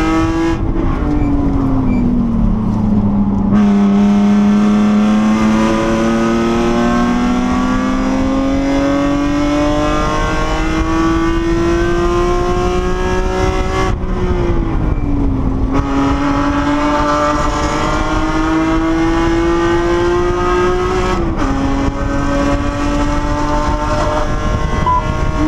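BMW E46 M3's 3.2-litre straight-six, heard from inside the cabin, accelerating hard through the gears. The engine note dips briefly near the start, then climbs steadily, drops sharply at upshifts about fourteen and twenty-one seconds in, and climbs again each time.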